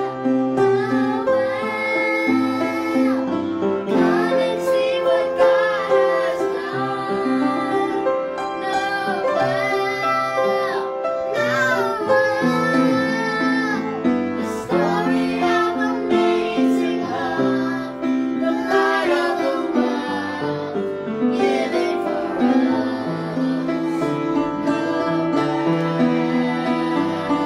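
A woman and young children singing a song's chorus together, with instrumental accompaniment.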